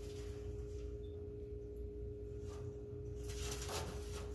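A steady hum made of two close, even tones over a low rumble, with a few faint brushing noises.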